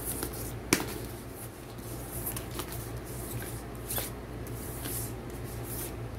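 Pages of a picture book being handled and turned: a soft paper rustle with a few sharp taps, the loudest a little under a second in and another about four seconds in.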